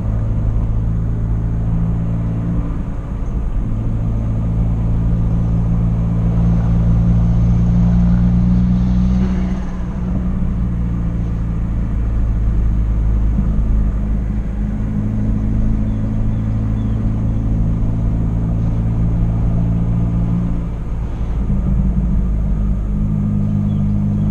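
Hyundai Genesis Coupe 2.0t's turbocharged four-cylinder engine running while the car is driven, its low note changing pitch and dipping briefly a few times.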